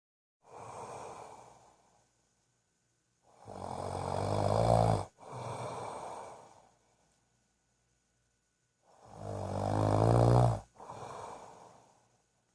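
Snoring in a slow, regular rhythm: two loud, rattling snores that build and cut off sharply, about six seconds apart, each followed by a softer breath.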